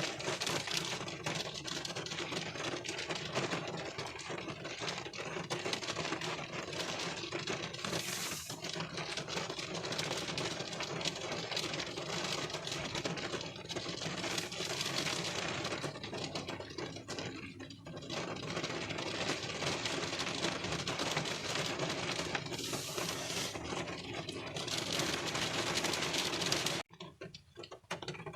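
Rain pattering on a car windshield, heard from inside the car: a dense, steady rattle of countless small drop impacts on the glass. About 27 seconds in it suddenly drops much quieter.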